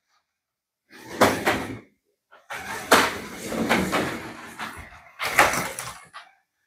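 1/24 scale TTS March F2 slot car running on the track, heard as three bursts of clacking as its low-set guide catches on the track joints.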